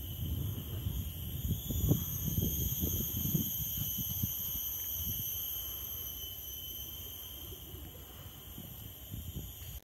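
Insects droning in several steady high-pitched tones, with an uneven low rumble on the microphone that is strongest in the first few seconds and then fades.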